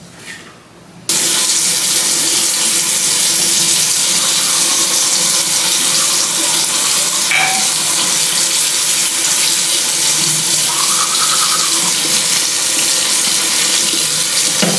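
Steady rush of running water that starts about a second in.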